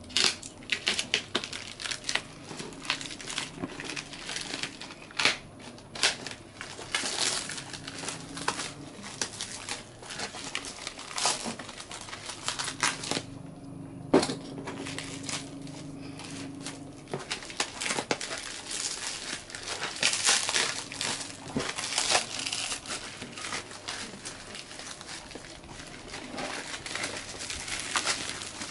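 Thin black plastic bag wrapping crinkling and crackling in irregular bursts as it is torn open and pulled off a cardboard box, with one sharp click about halfway through.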